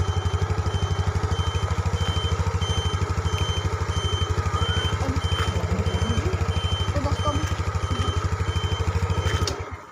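TVS Jupiter ZX scooter's single-cylinder four-stroke engine idling with an even low putter, cutting out near the end. Over it, the turn-indicator buzzer gives a high beep that switches on and off steadily, about twice a second.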